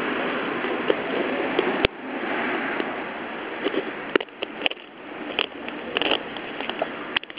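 Close rustling of jacket fabric and handling noise as a kitten moves about against it, with a sharp click about two seconds in and short scratchy rustles through the second half.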